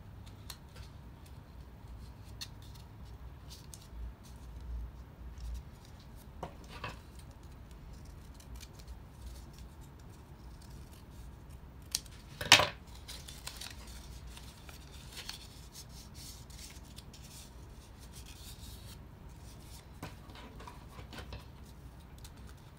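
Scissors snipping along the edge of a folded paper pattern, with soft paper handling between cuts. A single sharp click about halfway through is the loudest sound.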